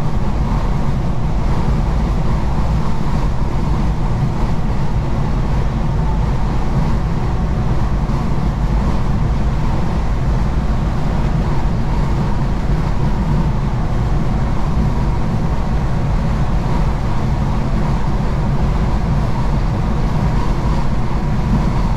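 Semi truck driving: a steady engine drone and road noise heard from inside the cab, unchanging throughout.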